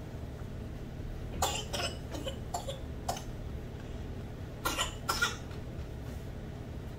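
A person coughing in two short fits: several coughs about a second and a half in, then two or three more around five seconds in. The coughing comes from drinking water too fast.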